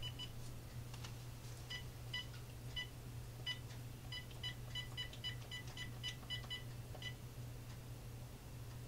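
Uniden EXAI7980 cordless phone keypad beeping as a number is dialed: about twenty short, high beeps in quick, uneven runs over a steady low hum.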